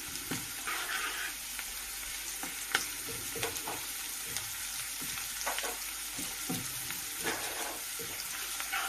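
Minced garlic and grated ginger sizzling in hot oil in a non-stick kadhai, with a steady hiss, while a wooden spatula stirs and scrapes the pan in scattered clicks and taps.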